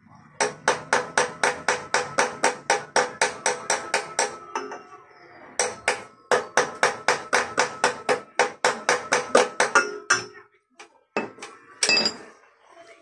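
Rapid metal-on-metal hammering with a metal tool on a Yamada 7 hp diesel engine. There are about five ringing strikes a second in two long runs with a short pause between, then a few single knocks near the end.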